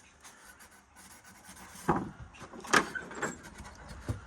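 Handling noise from taking apart a window air conditioner: a few sharp knocks and scrapes of panels and parts being pulled at, starting about two seconds in, the loudest a little under three seconds in.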